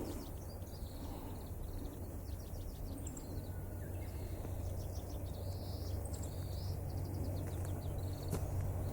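Outdoor ambience: high, rapidly repeating chirps over a steady low rumble that grows slowly louder.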